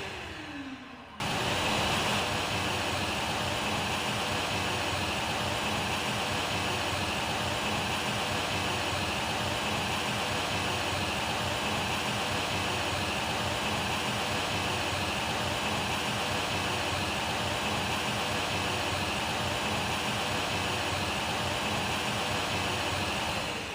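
Vacuum cleaner running with a steady high whine over a rush of air. Right at the start it is switched off and its motor begins winding down in a falling whine, then it is switched back on abruptly about a second in; it is switched off again at the very end, the pitch falling as the motor spins down.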